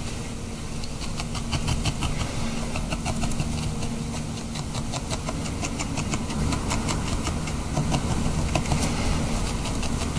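Rapid, irregular clicks of a felting needle stabbing into a firming wool ball, over a steady low hum.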